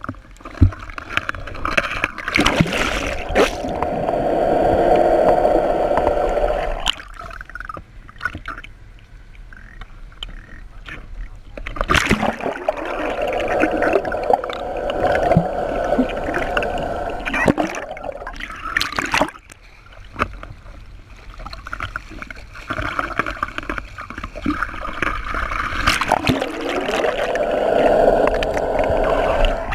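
Water gurgling and sloshing around a camera held at and under the sea surface, in three surges of several seconds with quieter lulls between, and a few sharp knocks.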